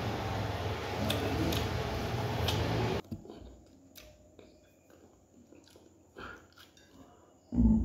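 Close-up eating sounds of a person chewing a mouthful of chicken biryani eaten by hand, with faint wet clicks. A steady rushing background noise cuts off abruptly about three seconds in, and a single low thump comes near the end.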